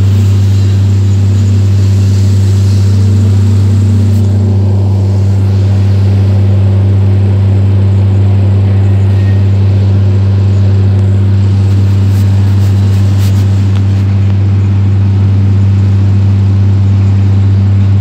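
Hydraulic excavator's diesel engine running at a steady speed, heard from inside the operator's cab: a loud, even drone that holds unchanged.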